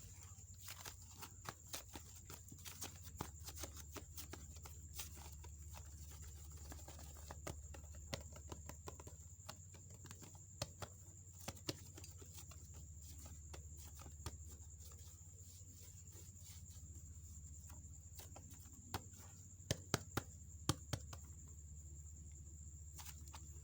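Clay slime being squeezed and stretched by hand: scattered sharp sticky clicks and pops, coming in a quick cluster a second or two in and again near the end.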